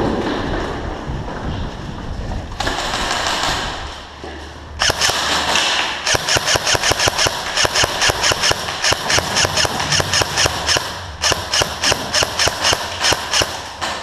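Airsoft gun firing rapid strings of shots, starting about five seconds in, with a short pause about eleven seconds in.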